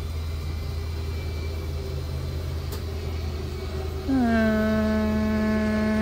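Electric slide-out motor whining loudly as the switch is held to draw the bedroom slide fully in; it starts about four seconds in, dips in pitch for a moment as it takes the load, then holds a steady pitch. Under it runs the low, steady hum of the motorhome's idling V8 engine.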